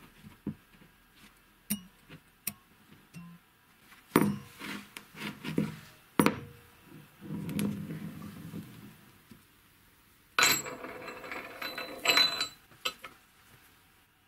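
An aluminium sleeve with thin steel blades inside clinking and knocking as it is handled and set down on a plywood board, then rolling across the wood, followed by a denser metallic rattle of about two seconds.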